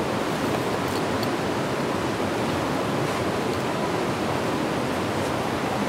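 Steady rush of flowing water from a forest stream, an even hiss with no let-up.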